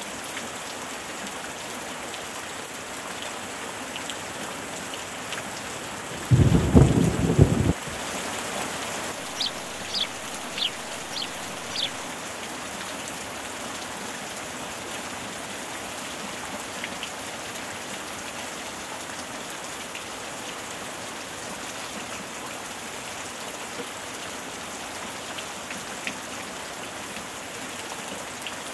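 Steady rain falling on a swimming pool's water surface. About six seconds in, a loud low rumble lasts a second or two, and a few short high chirps follow a few seconds later.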